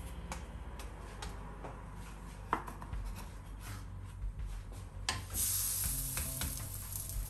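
Wooden spatula clicking and scraping against a pan and a plate as flatbreads are turned, then a high hissing sizzle from the hot pan starting about five seconds in, over faint background music.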